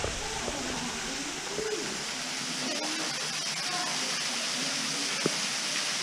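Waterfall spilling into a rock pool: a steady rush of falling water, with faint distant voices under it and a single sharp tick about five seconds in.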